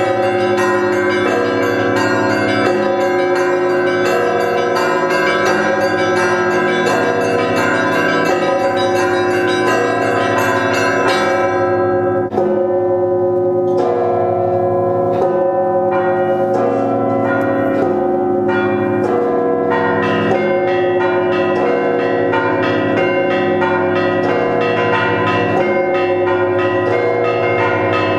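Russian Orthodox monastery bells ringing: small, high bells struck rapidly over the long, lasting hum of larger bells. About twelve seconds in the small bells stop for a moment, then come back in and build up again.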